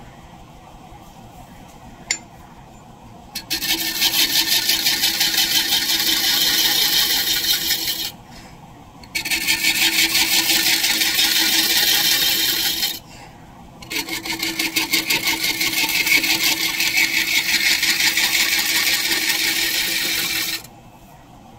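Large woodturning scraper cutting the face of a maple disc spinning on a lathe: a loud scraping hiss in three passes, each about four to seven seconds long, with short pauses between them, over the lathe's low running noise. A single sharp click about two seconds in.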